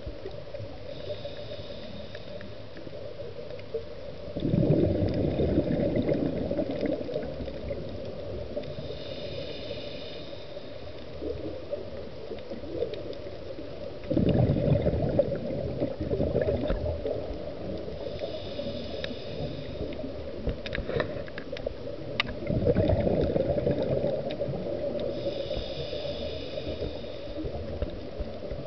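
Scuba regulator breathing heard underwater: a rushing, gurgling burst of exhaled bubbles about every eight to ten seconds, with a faint high hiss from the regulator between them.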